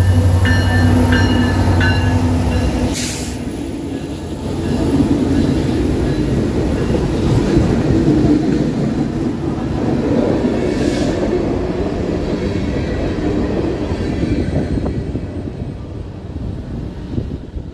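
Norfolk Southern diesel locomotives pass close by, their engines running with a deep drone. A brief loud burst of noise comes about three seconds in, then the freight cars rumble steadily over the rails. The rumble fades near the end.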